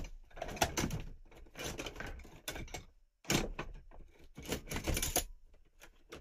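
Metal hand tools clattering and clinking as someone rummages through a container of tools, in irregular bursts with a brief pause about halfway through.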